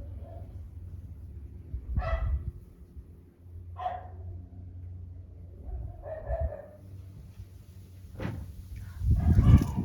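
A dog barking three times, a couple of seconds apart, with a louder rustling thump near the end.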